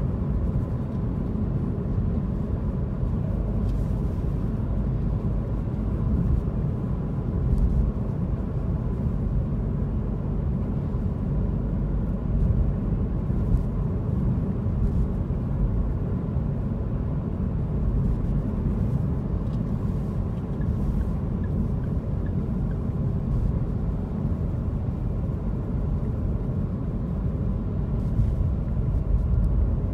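Car driving along a city road: a steady low rumble of engine and tyre noise.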